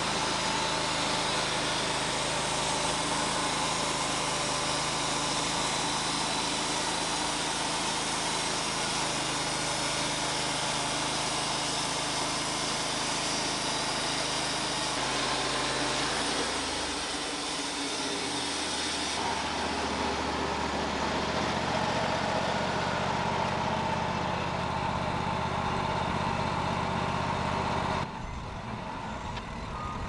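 Wood-Mizer LT35 hydraulic sawmill running, its engine-driven band blade sawing lengthwise through a fire-burned log. A little past halfway the engine note drops lower and the high hiss eases. Near the end the sound cuts abruptly to a quieter engine sound.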